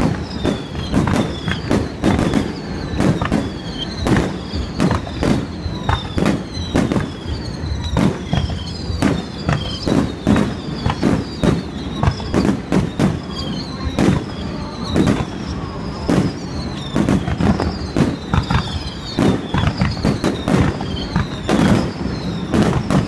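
Aerial fireworks display: a rapid, continuous barrage of shells bursting, several bangs a second, with short falling whistles threaded through it.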